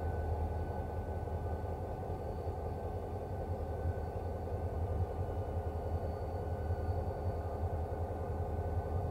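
Diesel locomotive engine idling steadily on a slowly turning railway turntable: a deep, even hum with a faint steady whine above it.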